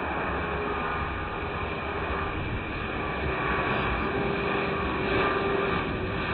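Airbus A300-600ST Beluga's twin turbofan engines during its landing, a steady jet rumble with a faint whine of tones through it. It grows slightly louder.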